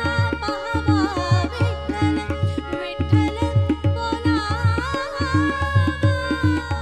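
A woman singing a Marathi devotional abhang in an ornamented, wavering line, ending on a long held note. Tabla keeps a steady beat under her, and a harmonium holds sustained notes.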